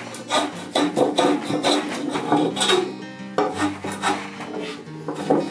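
Hand plane shaving the laminated poplar benchtop in a quick run of short, rasping strokes, several a second. Background music plays underneath.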